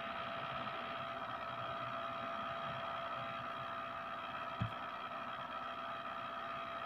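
Steady background hiss with a constant faint high hum, and one soft low thump about four and a half seconds in.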